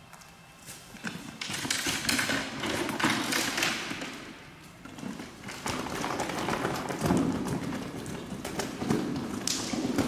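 A freshly hooked carp thrashing: irregular thumps, slaps and splashes that start about a second in and go on in bouts.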